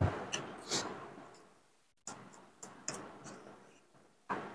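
Close-miked eating sounds of biryani being eaten by hand: irregular wet mouth smacks and chewing clicks, about seven sharp ones, each trailing off. There is a brief dropout about two seconds in.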